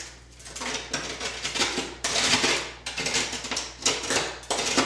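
A blade being worked by hand through gypsum drywall overhead, in irregular rasping strokes as an opening in the ceiling board is cut and trimmed.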